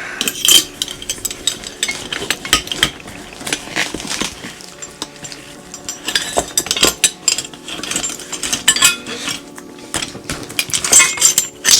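Metal plumbing hand tools clinking and knocking against one another as they are handled and packed into a tool bag: an irregular run of short clicks and clatters.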